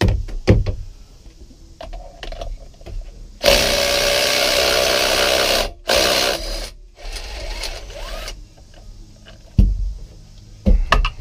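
Cordless impact wrench hammering on the supercharger clutch's left-hand-threaded crank bolt of a Yamaha SVHO engine to break it loose: one run of about two seconds, then a short second burst. Scattered knocks of the tool being set on the bolt near the start and near the end.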